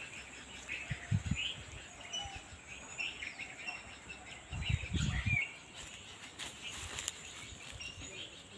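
Birds chirping with many short calls, over a low outdoor hiss. A couple of low dull thuds come about a second in and again around five seconds in.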